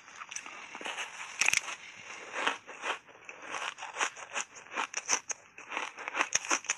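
Bite into a block of ice thickly coated in matcha powder, then crunching and chewing the ice: a run of sharp crackling crunches, a few a second, the loudest about a second and a half in.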